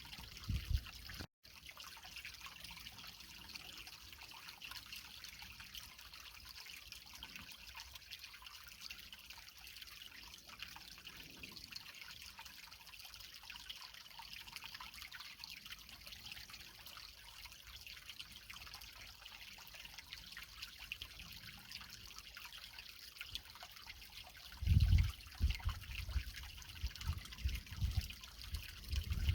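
Creek water trickling and splashing over rocks, a steady hiss. Over the last few seconds, a run of loud low thuds sounds beneath it.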